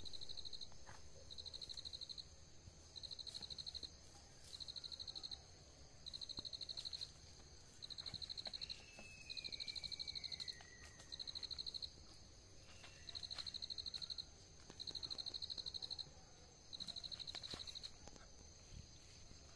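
An insect calling in rhythmic high buzzing trills, each about a second long and repeated every second and a half or so, over a steady high whine from other insects. A bird gives one falling whistle about halfway through.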